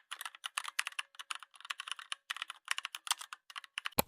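Rapid computer keyboard typing: a fast run of key clicks, several a second, ending with two louder key strikes near the end.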